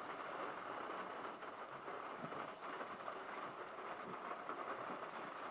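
Pouring rain falling steadily: an even hiss with faint pattering.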